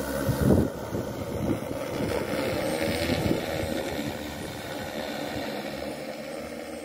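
Quadcopter drone's electric motors and propellers buzzing steadily as it lifts off and climbs away, loudest about half a second in and then slowly fading as it flies off.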